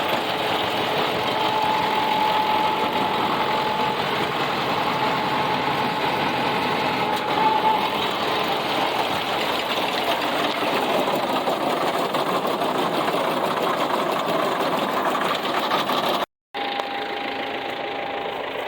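A tractor-driven round baler running steadily, the engine and baler machinery making a dense mechanical clatter with a faint steady whine over it. The sound cuts out for a moment near the end.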